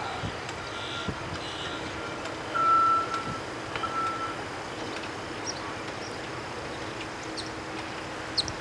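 A distant vehicle's reversing alarm beeps with a steady engine hum beneath it, the beeps stopping about halfway through. A few faint, short high chip notes come from yellow-rumped warblers.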